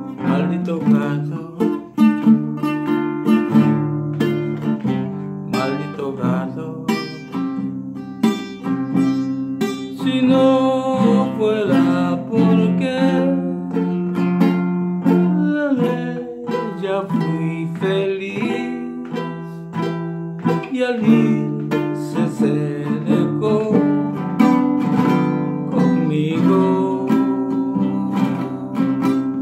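Acoustic guitar playing an instrumental break, strummed chords mixed with plucked melody notes.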